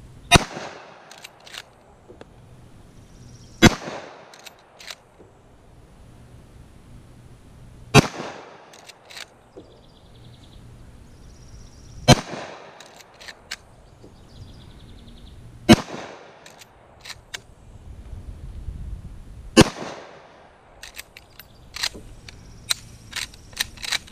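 .30-30 lever-action rifle firing six shots, about four seconds apart. Each shot is followed by a few short clicks as the lever is worked to chamber the next round, and a run of clicks and knocks comes near the end.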